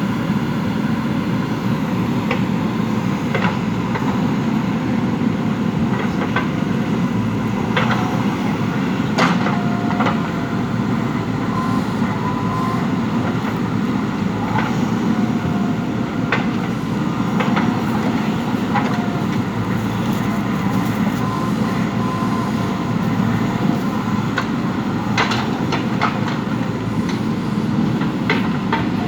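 JCB 3DX backhoe loader's diesel engine running steadily under working load, with repeated metal clanks and knocks from the digging arm and bucket.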